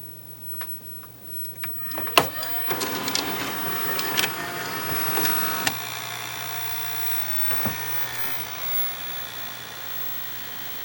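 Samsung VT-311TA VCR loading a tape after play is pressed: a click about two seconds in, then motors whirring and clicking for about three seconds as the tape threads around the head drum, then a steady whir as the drum spins and the tape plays.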